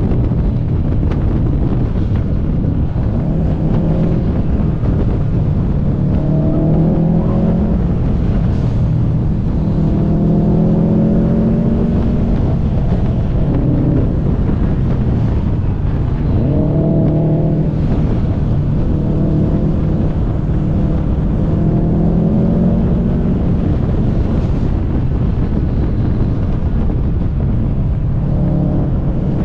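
Car engine under hard driving, rising in pitch about six times as it pulls up through the revs and then dropping back, over a steady heavy rumble of road and wind noise.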